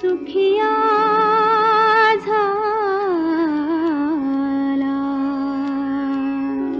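A woman singing in Indian classical style. She holds a long note with vibrato, slides down through an ornamented run about three seconds in, and settles on a lower held note over a steady low drone.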